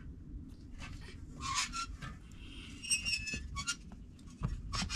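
A small concrete roller dragged over rough dirt ground, rolling with a low, steady grinding noise. Short high-pitched child squeals come in about a second and a half in and again around the middle.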